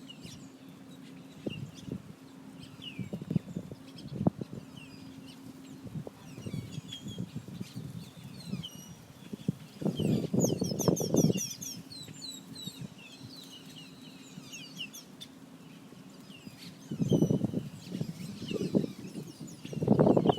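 Many small birds chirping and twittering in a dense chorus at sunset, with a few louder low bursts about ten seconds in and again near the end, over a faint steady hum.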